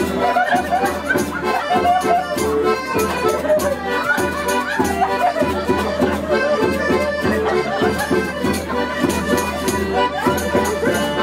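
Lively accordion music with a steady beat.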